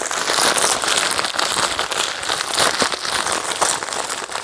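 Packaging bag crinkling and rustling steadily as it is handled and opened.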